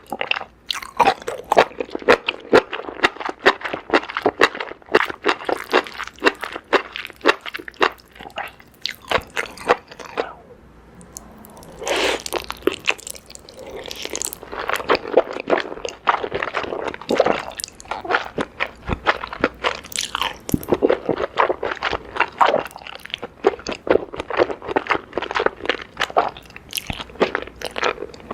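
Close-miked mouth sounds of someone chewing and biting food, a quick run of sharp wet clicks several times a second, with a short lull about ten seconds in.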